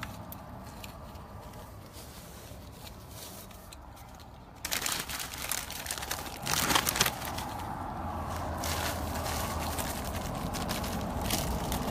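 Crinkling, rustling handling noise with sharp crackles, starting suddenly about five seconds in after a quieter stretch and loudest about two seconds later, as food is handled at an open window.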